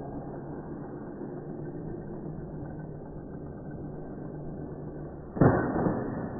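Zip line trolley running along the steel cable as a rider comes in to the landing, with a steady rumble. About five seconds in, a sudden loud clatter dies away over about a second as the trolley reaches the braking end at the station.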